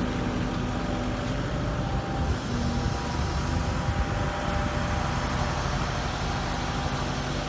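Diesel engine of a piece of heavy equipment running steadily, with a low hum under a constant mechanical noise.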